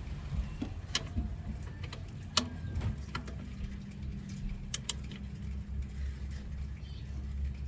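A few short, sharp clicks and clinks of hand tools against metal parts in an engine bay, over a steady low rumble.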